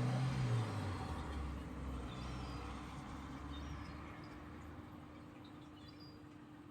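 A motor vehicle passing by: a low rumble at its loudest right at the start, then fading away over the next few seconds. A few faint short bird chirps sound over it.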